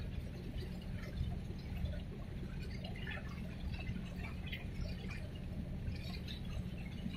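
Harbour water lapping and splashing close by, in small irregular drips and slaps, over a steady low engine drone.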